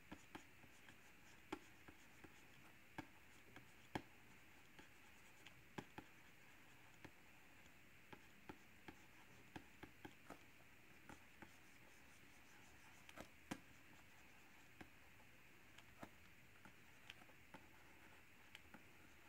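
Wacom pen nib tapping and stroking on the screen of a Cintiq 21UX pen display while sketching: faint, irregular small taps, about two a second, over a quiet background hiss.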